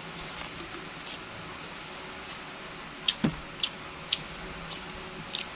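Eating sounds: a handful of short, sharp clicks and smacks, most of them in the second half, over a steady background hiss.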